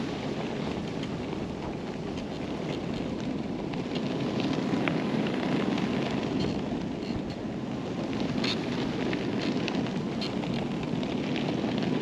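Fat-tyred electric bike riding through deep snow: a steady rumble of the tyres churning snow mixed with wind buffeting the microphone, with scattered light ticks throughout.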